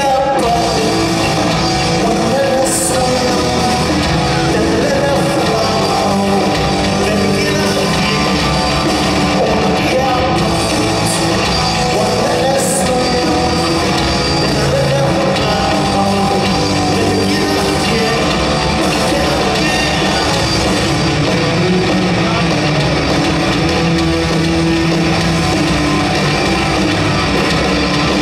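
Punk rock band playing live: distorted electric guitars, bass and drums, with a sung lead vocal.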